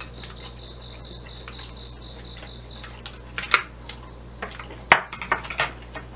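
Metal chopsticks clicking against a small ceramic dipping bowl, a few sharp clinks, the loudest about three and a half and five seconds in.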